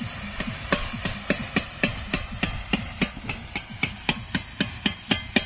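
Steady metallic tapping on a perforated skimming ladle (jhanjhri) held over hot oil, about four sharp, slightly ringing taps a second. The taps shake bundia batter through the holes into the oil as drops.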